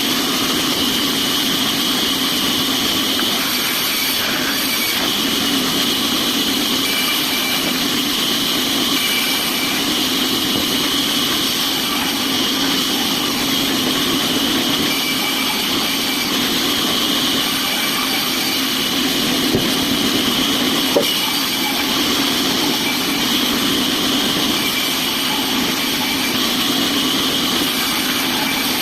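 Sawmill machinery running steadily with a constant hum and hiss, and a couple of faint clicks about twenty seconds in.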